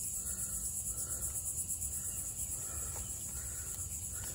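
Steady high-pitched chorus of insects, an even, fast-pulsing buzz that goes on without a break.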